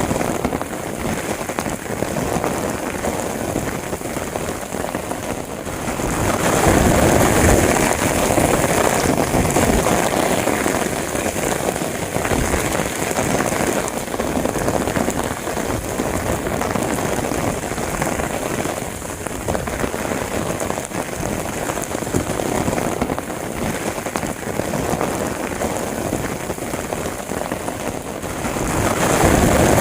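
Rain falling steadily, getting heavier about six seconds in and again near the end.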